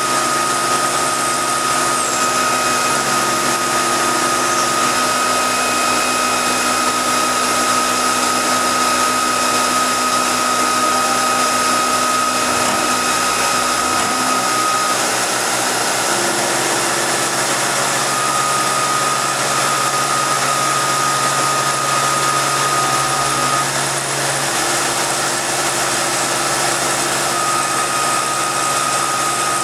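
CNC milling machine cutting a billet snowmobile clutch helix with an end mill: steady machine running noise with a high, even cutting whine. The whine drops out twice in the second half for a few seconds each, while the machine keeps running.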